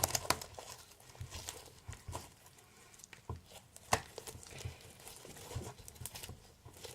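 Clear slime made from bouncy play gel being squeezed and stretched by hand, giving irregular small clicks and pops, with a couple of sharper pops about three and four seconds in.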